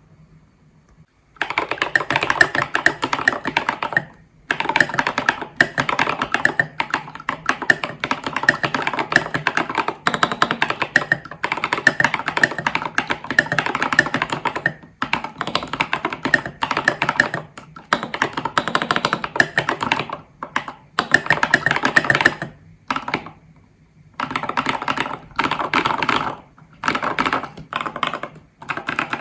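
Steady, fast typing on an ID80 v1 mechanical keyboard with foam between PCB and plate, Glorious Panda tactile switches lubed with Krytox 205g0 and filmed, and SA-profile keycaps, recorded through a phone's microphone. The key strokes begin about a second in and come in dense runs broken by several brief pauses.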